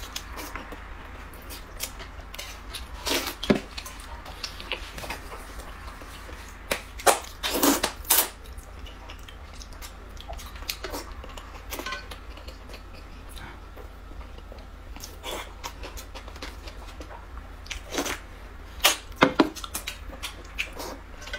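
Close-up eating sounds: noodles in soup being slurped and chewed, with short clicks of chopsticks against a metal bowl. The loudest slurps come in clusters about three seconds in, around seven to eight seconds, and near the end.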